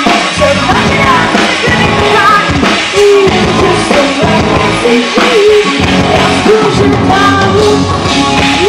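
Live pop-rock band music with a woman singing, loud and continuous.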